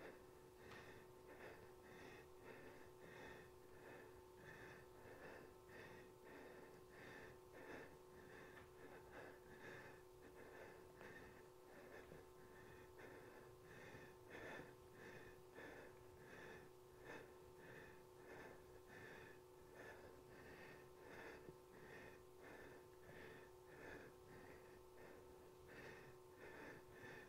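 Faint, quick rhythmic breathing of a woman exerting herself through scissor kicks, about two breaths a second, over a faint steady hum.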